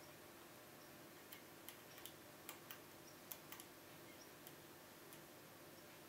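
Faint, irregular metallic clicks of a lock pick working the pins of a Kaba Gege pExtra five-pin cylinder with anti-pick pins, under tension from a tension wrench. About nine clicks come between about one and five seconds in, over a faint room hum.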